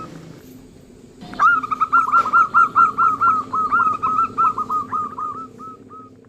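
Local zebra dove (perkutut) with a small, raspy voice cooing: a rapid series of short hooked notes that starts about a second in after a brief knock and slows and fades toward the end. A low steady hum sits underneath.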